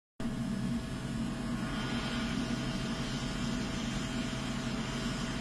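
Steady background hum and hiss with a faint constant tone, with no distinct events.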